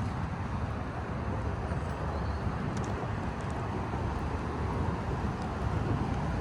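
Steady low outdoor rumble, mixing wind and traffic noise, with a few faint clicks about three seconds in.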